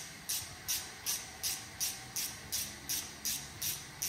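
Ratchet wrench being worked back and forth on a nut, a short burst of pawl clicking on each return stroke, about three strokes a second.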